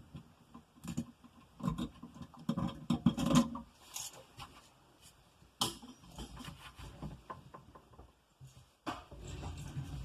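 Small irregular clicks, taps and rustles of hand tools and stiff electrical wire being handled while a wire end is bent into a hook and fastened under an outlet's terminal screw. A busier patch of handling comes about three seconds in, and there is one sharp click a little past the middle.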